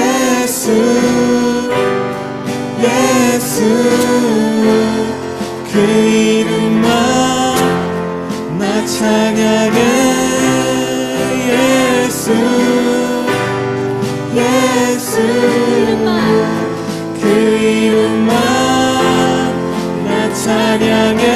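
Contemporary worship song sung by a small worship team over band accompaniment with guitar, the melody held in long sung phrases.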